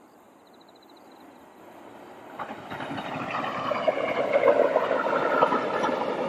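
Korail passenger train hauled by an electric locomotive approaching and passing: a rumble of wheels on rail that is faint at first and grows steadily louder from about two seconds in, with scattered clicks of wheels over the track.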